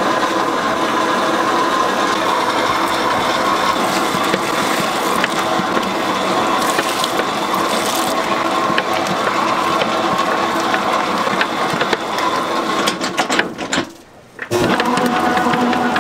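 A machine running steadily with a rattling, geared whir. It cuts out for about a second near the end, then starts again.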